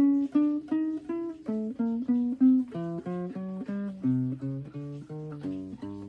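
Guitar played by hand: single notes picked one after another, about three or four a second, in a melody that steps lower over the first four seconds.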